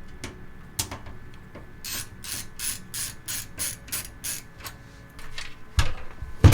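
Ratcheting screwdriver clicking as the screws holding a PC case panel are backed out: a run of about eight even clicks, roughly three a second, in the middle, then two sharp knocks near the end, the second the loudest.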